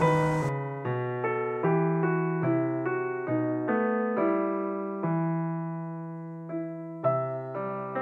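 Slow background piano music: notes and chords are struck about once a second and each fades away, with a longer held chord in the middle. A faint hiss under the music stops about half a second in.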